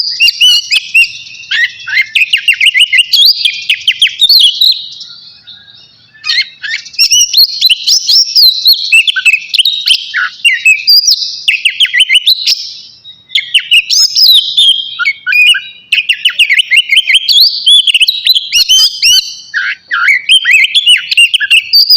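Oriental magpie-robin (kacer) singing loudly and almost without pause, a fast run of varied whistles, trills and chirps, breaking off briefly about five seconds in and again around thirteen seconds.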